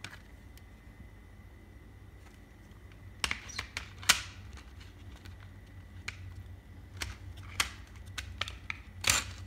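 A plastic CD jewel case being handled on a wooden floor: a handful of sharp plastic clicks and taps spread across a few seconds, the loudest about four seconds in.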